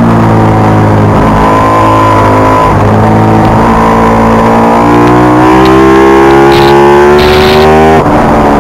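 Ducati 996R's V-twin engine under load, holding a steady note through a corner, then rising steadily in pitch as it accelerates out. About eight seconds in the pitch drops suddenly with a brief dip in loudness, as an upshift.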